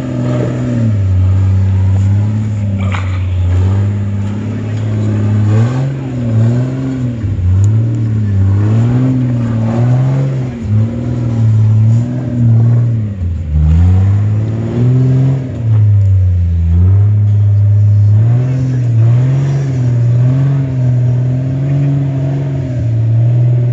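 Lifted Jeep's engine revving up and down over and over under load as it crawls up a rocky climb, its pitch rising and falling every second or so, with a few deeper drops in revs around the middle.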